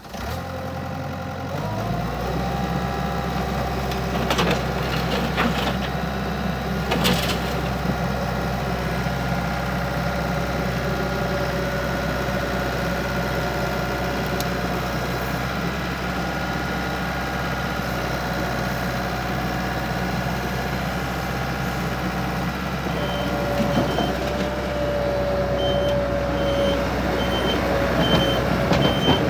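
Takeuchi TL250 compact track loader's diesel engine starting up, settling about a second and a half in and then running steadily. In the last six seconds a higher whine joins it along with a regularly repeating high beep.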